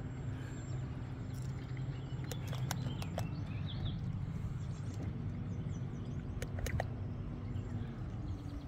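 Steady low hum of a boat motor running at idle, with a few light clicks and knocks about two and a half and six and a half seconds in.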